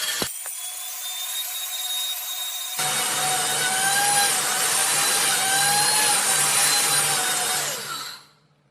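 Electric grinder motor running at high speed with a steady whine. About three seconds in it turns louder and rougher, then it winds down with a falling whine and stops near the end.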